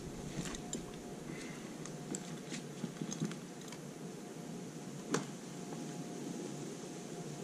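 Faint scattered clicks and taps of hands-on work at a wooden deck beam, with one sharper knock about five seconds in, over a faint steady hum.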